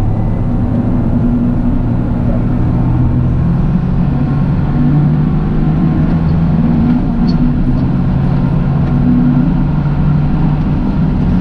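Toyota GR Yaris three-cylinder engine running steadily while driving, its drone drifting gently up and down in pitch with a low rumble beneath.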